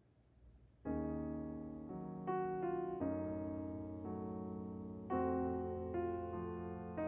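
Soft background piano music, slow chords struck about once a second, starting about a second in after a moment of near silence.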